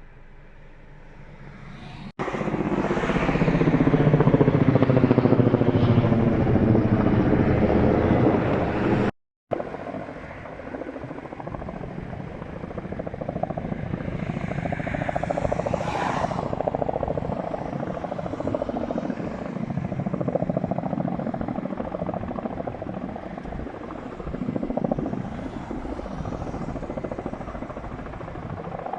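Firefighting helicopter flying low overhead, its rotor and turbine loud, the pitch shifting as it passes. After a sudden cut, helicopter noise goes on more steadily and quieter.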